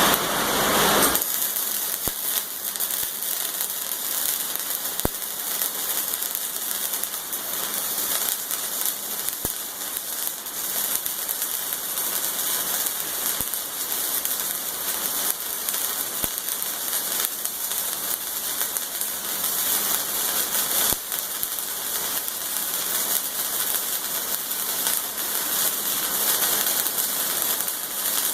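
Arc welding a flat plate onto a manual tire changer: a steady crackling hiss with many small pops, running without a break.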